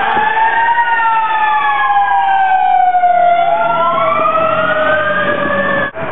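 Fire engine sirens wailing, at least two overlapping tones sliding up and down in pitch and crossing each other. They cut off abruptly near the end, replaced by a rougher, noisier sound.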